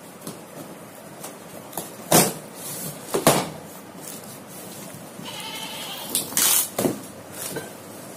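Packing tape and cardboard being torn off a large carton by hand, with two sharp loud rips a little after two and three seconds in and more tearing near the end. A brief squeal around five seconds in.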